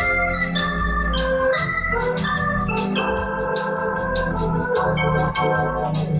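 Two-manual home electronic organ playing a bossa nova tune: a melody over held chords and low pedal bass notes, with a steady ticking beat.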